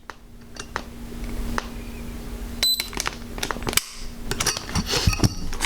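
Small clicks and rattles from handling an unloaded Steyr M9A1 polymer-frame pistol with a trigger-pull gauge hooked on the trigger, with the trigger pulled through to a dry-fire break, the loudest cluster of clicks near the end. A short high beep sounds about halfway through.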